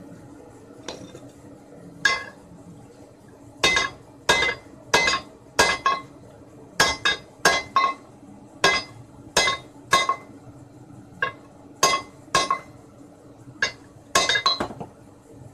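Small sledgehammer striking heated 19 mm ribbed steel rebar to straighten it: about twenty sharp metal-on-metal blows at an uneven pace, each with a short ring, starting about two seconds in.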